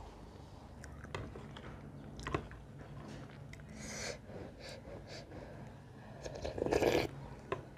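Close-miked eating sounds: buckwheat soup sipped and slurped from a spoon, with small mouth clicks and chewing. There is one slurp about four seconds in and a louder one near the end.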